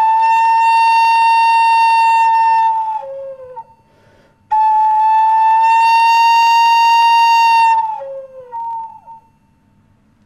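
End-blown cane flute played solo: two long held notes of about three seconds each, with a short lower note falling away after each, and a brief silence between the two phrases.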